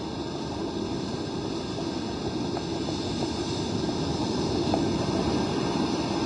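Wind and heavy surf on a storm-lashed beach, a steady noise that grows somewhat louder about four seconds in.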